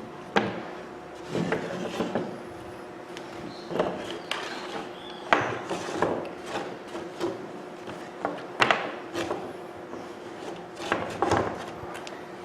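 Irregular clicks, knocks and short scrapes of hard tool parts being handled and fitted together as the handle is put onto a Bosch rotary hammer's housing. The sharpest knock comes a little past eight seconds in.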